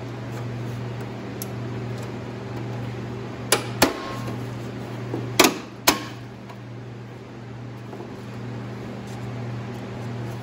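Plastic retaining clips snapping loose as a black trim panel is pried off the inside of a Jeep Wrangler tailgate: four sharp snaps, a quick pair about three and a half seconds in and another pair about two seconds later. A steady low hum sits underneath.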